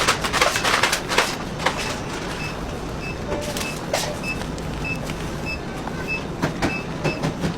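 Bakery production-line machinery running with a steady hum. There is clatter and knocking in the first second, and a short high beep repeats about twice a second throughout.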